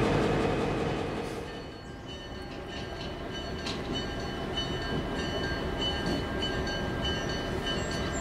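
EMD GP38-2 diesel locomotives rumbling close by, fading away over the first two seconds. Then a railroad grade-crossing warning bell rings steadily, with repeated even strokes, over the lower rumble of a locomotive further off.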